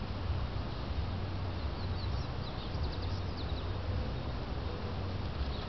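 Steady outdoor noise with a low rumble, and a short run of quick, high bird chirps near the middle.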